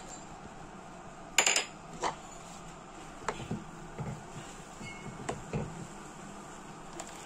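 A ceramic plate clatters sharply against a clay pot, then a wooden spatula stirring the porridge knocks lightly on the pot several times, over a steady low hiss.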